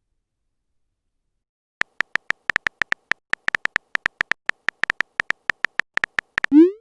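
Rapid run of short electronic beep blips, about six a second in an uneven rhythm, starting about two seconds in, ending with a quick rising tone glide. It is a cartoon-style sound effect.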